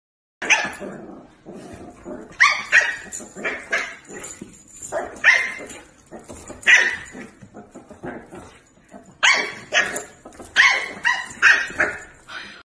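A dog barking and yipping in short, high-pitched calls that come in irregular bunches.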